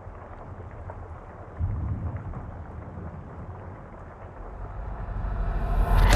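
Movie-trailer sound design: a low rumble under a hiss of noise, a deep boom about one and a half seconds in, then a swell that rises to a loud hit at the very end.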